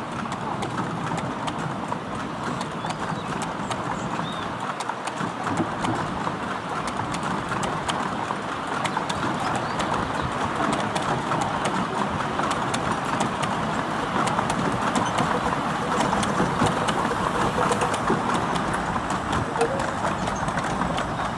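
Miniature-railway passenger carriages rolling past on the track: a steady rumble of small steel wheels on rail with a rapid, continuous clatter of clicks from wheels passing over rail joints.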